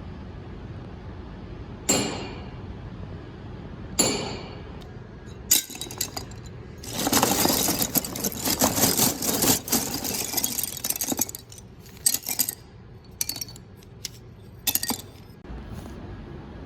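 Foley sound effects made with small hard objects. Two sharp clinks ring out about two seconds apart, then a few seconds of dense clattering and rattling, followed by scattered clicks.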